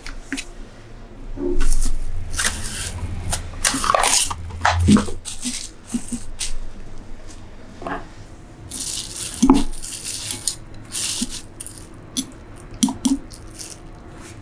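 Cling film crinkling as it is stretched over a glass bowl of marinating salmon and later peeled back, in two stretches of irregular crackling, with a few light taps in between and after.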